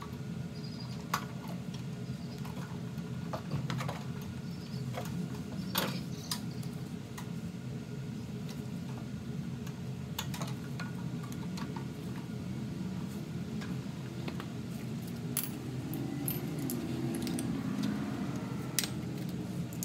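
Scattered small clicks and clinks of the air box and throttle linkage being fitted by hand on a Briggs & Stratton 6 HP mower engine, over a steady low hum.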